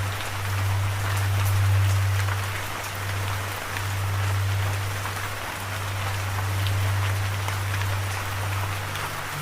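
Steady rain: a dense, even hiss with scattered drop taps. Underneath runs a low held drone note.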